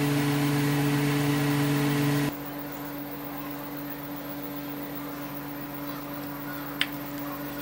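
Steady mechanical hum and whir that drops suddenly to a quieter, lower hum a little over two seconds in, with a single sharp click near the end.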